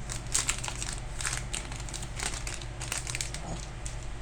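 Crinkling and rustling of Pokémon card packs and cards being handled, in short irregular crackles.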